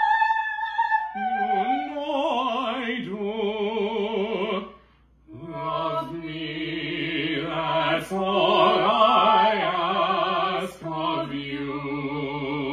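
A woman and a man singing a duet in classical musical-theatre style, both with vibrato. A high held female note opens, the male voice joins about a second in, and after a short breath about five seconds in they sing on together in harmony.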